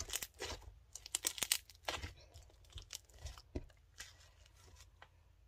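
Handmade slime squeezed and stretched between the hands, giving a rapid, irregular crackle of small pops as trapped air bubbles burst. The crackling thins out about four seconds in.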